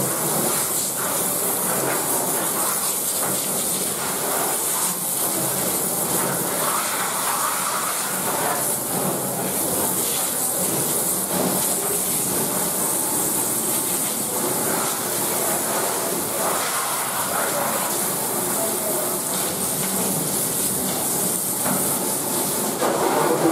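Hand-held sink spray nozzle hissing steadily as a hard jet of water splashes over a whole catfish on a wooden chopping block and off the stainless steel sink.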